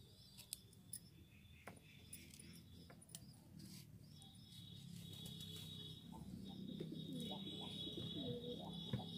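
Faint cooing of doves, growing louder toward the end, with scattered light clicks in the first half and a steady high whine from about four seconds in.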